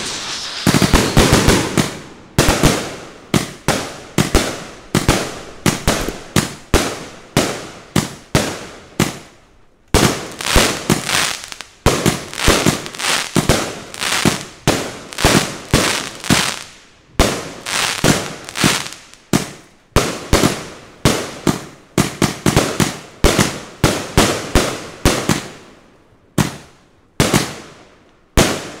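A 100-shot firework cake firing shot after shot. Each shot is a sharp bang that dies away quickly, about two a second, with a short lull about ten seconds in before the volley resumes.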